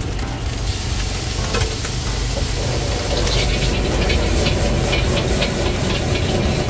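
Rice sizzling in a wok over a gas burner while a metal spatula scrapes and clinks against the wok as it is stirred and tossed. The scraping strokes come thick and fast from about halfway in, over a steady low rumble.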